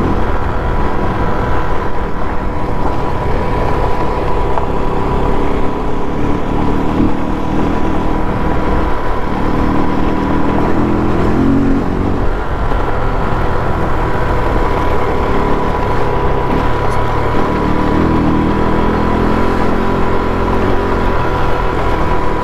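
KTM RC390's single-cylinder engine running under way on a ride, heard through wind rush on a helmet-mounted phone. The engine note comes up clearer in two stretches, about a third of the way in and again near the end, as the throttle is opened.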